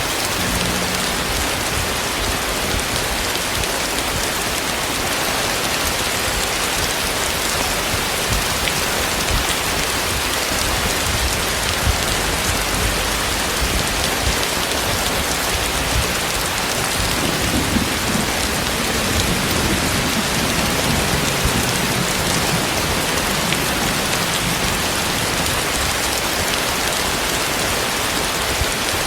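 Heavy tropical rain falling steadily on surfaces, a dense, even hiss. A low rumble comes in a little past halfway.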